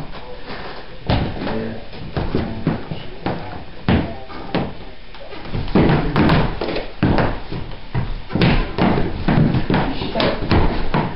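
A run of irregular thumps and bangs, heavier in the second half, with voices in between.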